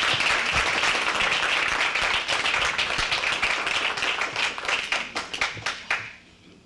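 Audience applauding: dense clapping that thins out into a few scattered claps and stops about six seconds in.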